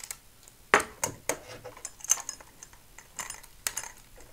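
Irregular small metal clicks and clinks as wing nuts and their washers are turned up by hand on the bolts of a DAB aerial's boom mount.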